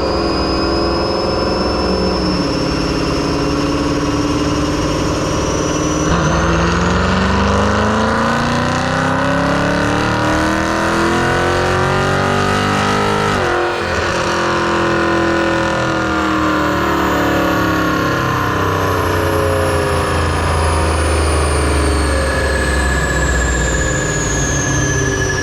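Highly modified 5.7-litre Hemi V8 with CNC-ported cylinder heads making a wide-open-throttle dyno pull. The engine note climbs steadily for about eight seconds, cuts off abruptly, then winds down slowly as it coasts. Near the end a high whine falls in pitch.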